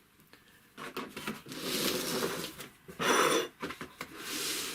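Handling noise at an industrial sewing machine's shaft under the removed pulley: three bouts of rustling and scraping as the clump of thread wound there is worked loose, the shortest, about three seconds in, the loudest.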